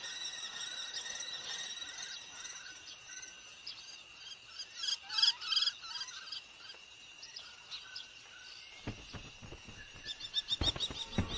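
Cuckoo chick begging: rapid high-pitched chirps, with a quick run of them about five seconds in and again near the end, over a steady high insect trill. A few low knocks come in near the end.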